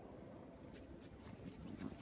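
Faint footsteps crunching in deep snow, starting about two-thirds of a second in and getting more frequent toward the end, over a low steady rumble.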